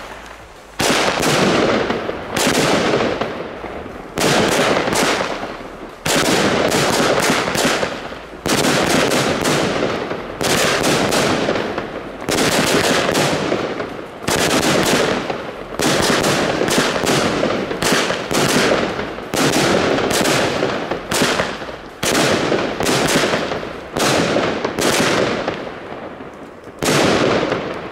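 Blackboxx 'Schwarze Witwe' fireworks battery (cake), fired three at once, shooting shell after shell: about one sharp bang every one and a half to two seconds, each ringing away before the next.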